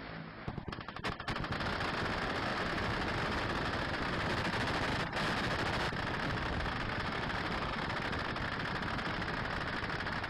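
Minigun firing: a few short separate bursts in the first second or so, then one long unbroken burst of very rapid fire at steady loudness, with a brief break about five seconds in.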